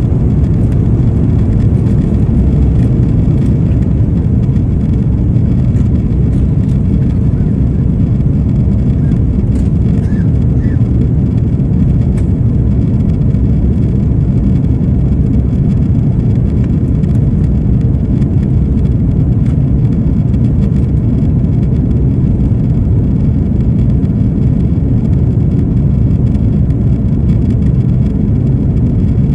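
Jet airliner at takeoff power, heard from inside the passenger cabin. It is a loud, steady, low roar of engine and airflow noise that carries on through the takeoff roll, liftoff and initial climb.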